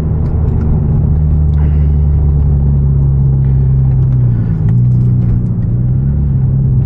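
Hyundai Genesis Coupe 2.0T's turbocharged four-cylinder engine running steadily while driving, heard from inside the cabin. Its note shifts slightly about four and a half seconds in.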